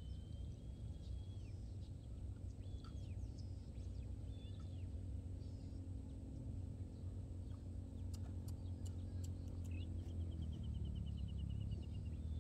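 Birds calling outdoors: several short whistled notes, then a long quavering trill near the end. Under them is a steady low rumble.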